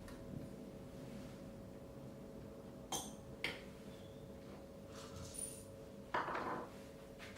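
A few light clinks and knocks of hard objects being handled, two sharp clicks followed near the end by a short, louder clatter, over a faint steady hum.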